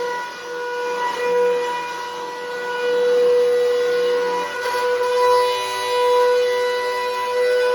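Bissell Powerforce Helix Turbo 68C71 upright vacuum running with a loud, steady high-pitched whine that wavers slightly in level. The owner calls it exceedingly loud and puts this down to the machine needing to be taken apart and cleaned after sitting a long time.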